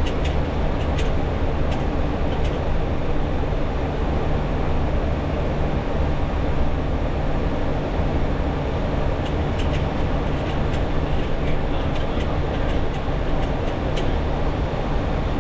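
Steady cockpit noise of a Boeing 737: an even engine and airflow drone with a low hum, with a few faint ticks scattered through it.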